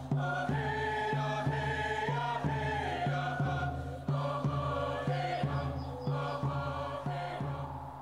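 Cree song: voices chanting over a steady drum beat, about two beats a second.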